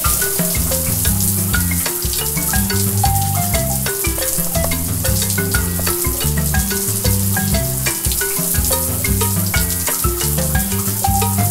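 A steady hiss of running water from a toy kitchen faucet as toy vegetables are rinsed. It plays under bouncy background music with a looping bass line and light mallet-like notes.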